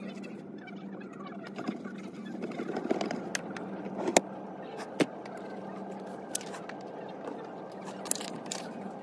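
Steady low hum of room tone, with rustling and several sharp clicks and taps of things being handled at a desk: a cloth wiping a drawer, then sheets of paper.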